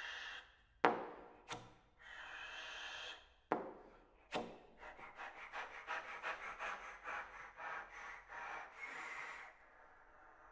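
Trombone played with extended techniques: unpitched air rushing through the instrument in long breathy swells, cut by a few sharp pops, then from about halfway a rapid pulsing of short air bursts that stops near the end.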